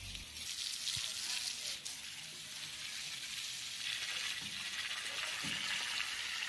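Water jet from a garden hose spraying and splashing, a steady hiss that gets stronger about four seconds in.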